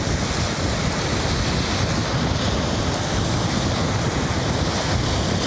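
Steady wind noise on the microphone over waves washing onto the shore.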